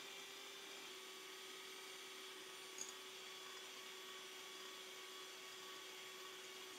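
Electric hand mixer running steadily at a soft level, its wire beaters whipping egg whites into meringue in a glass bowl, with one light tick about three seconds in.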